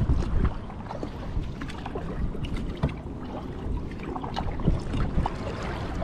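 Kayak paddle strokes: the blades dip and splash, and water drips and trickles in many small splashes, louder right at the start. A steady low rumble sits underneath.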